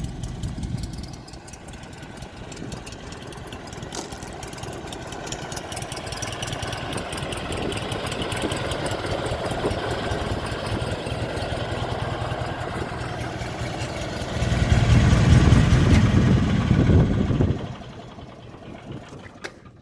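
Miller engine-driven welder's engine running steadily at idle, slowly growing louder, with a clearly louder stretch of about three seconds near the end before falling back.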